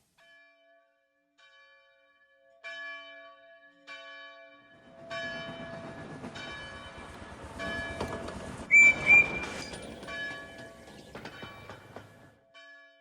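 A run of bell-like chiming notes, then a railway engine running, with two short, loud whistle blasts about nine seconds in.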